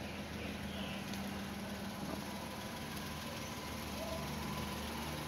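Renault Kwid's three-cylinder engine idling steadily while it warms up.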